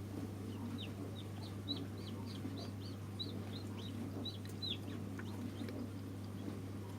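Newly hatched chicks peeping: a run of short, high calls that fall in pitch, about three or four a second, dying away about five seconds in. A steady low hum runs underneath.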